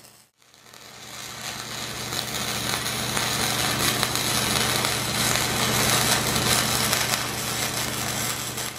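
Hobart Handler 140 MIG welder's arc running a continuous bead on steel: a steady sizzle over a constant low hum. It starts about half a second in after a brief silence.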